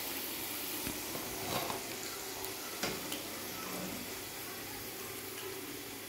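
Hot oil sizzling steadily as battered potato-strip pakoras deep-fry in a wok, with a few light clicks in the first three seconds.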